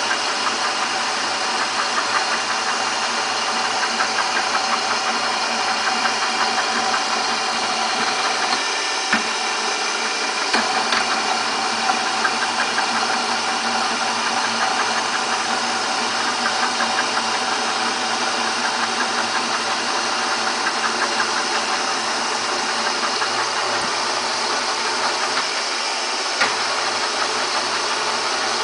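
Jarbe F2-CM universal milling machine running its power feed on all three axes at once, the feed gearbox giving a steady whining hum with a few short clicks.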